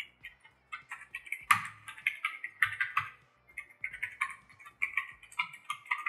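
Typing on a Redgear Grim membrane keyboard with ABS keycaps: a quick, irregular stream of key clacks, loudest in a flurry about a second and a half in.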